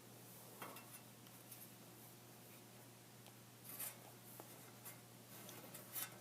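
Faint rustling and light clicks of a furnace air filter being handled, three short bursts over a low steady hum.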